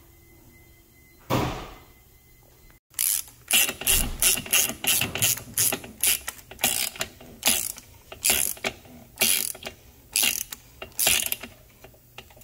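Hand ratchet clicking in a run of quick, even strokes, about two or three clicks a second, as the oil filter housing cap is tightened down. One short noise comes first, a little over a second in.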